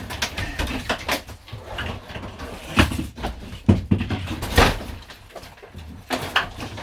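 Knocking and clattering of hand work stripping a camper van's interior, with three louder thumps in the middle.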